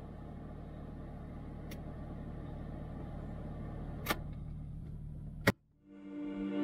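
Off-road vehicle's engine running steadily, with a couple of sharp knocks, cutting off suddenly about five and a half seconds in; music starts just before the end.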